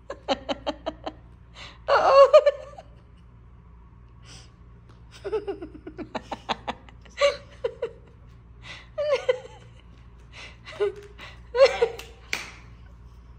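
Someone laughing and giggling in several short bursts of quick breathy pulses, with quiet gaps between them.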